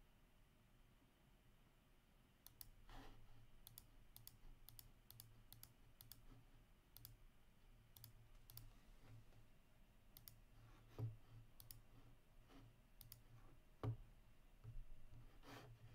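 Faint, irregular clicking of a computer keyboard and mouse, starting about two and a half seconds in, with two louder knocks later on.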